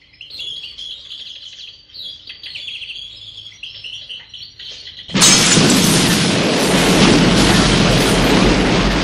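Small birds chirping with high, quick calls, then about five seconds in a sudden loud explosion cuts in and carries on as a steady, loud rush of burning fire, a staged special-effects blast.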